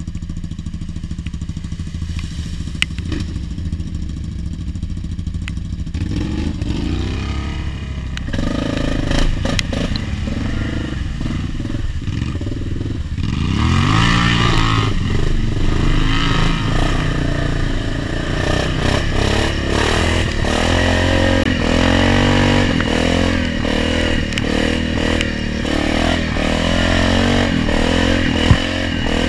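ATV engine running through an aftermarket triple-tip exhaust, revving up and down again and again while riding over a rough, slushy trail, with clatter from the machine. It gets louder about halfway through.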